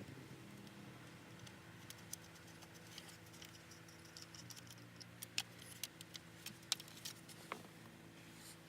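Light clicks and taps of small hard parts being handled, scattered at first and coming more often and louder from about five seconds in, over a faint steady hum.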